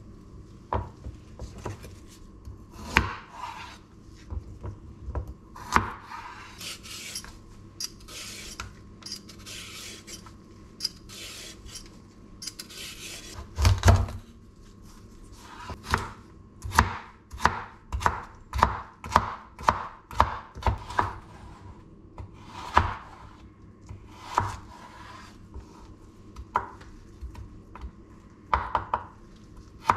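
A chef's knife chops a carrot on a bamboo cutting board, the blade knocking sharply on the wood. The knocks are scattered at first, with stretches of scraping and a heavier thump about halfway. They then settle into a steady rhythm of about two chops a second as the carrot is diced.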